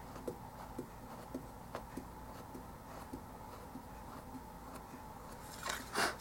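Faint small ticks and scrapes of a little hand drill being twisted by hand into a plastic miniature tabletop, boring shallow pilot holes. A short, louder rush of noise comes near the end.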